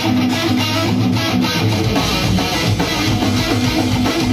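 Electric guitar strummed in a steady rhythm over a rock song.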